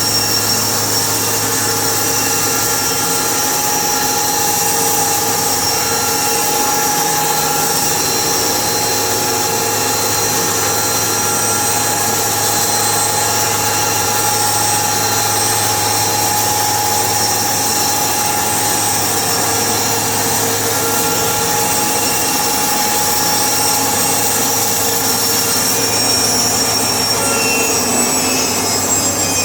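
A powered saw runs steadily with a high whine, and its pitch falls slightly near the end.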